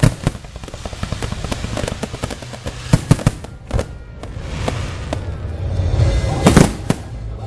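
Aerial fireworks bursting overhead: several sharp blasts with crackling between them. Two come close together about three seconds in, and the loudest comes near the end.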